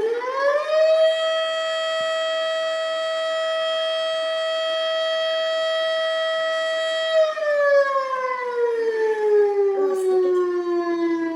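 A siren winding up in pitch, holding one steady tone for about seven seconds, then slowly winding down.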